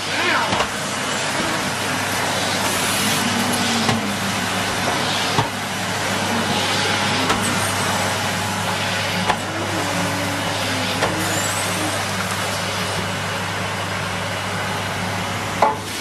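Numatic Henry cylinder vacuum cleaner running steadily, sucking on carpet through its hose and floor tool, with a few brief knocks as the tool is worked.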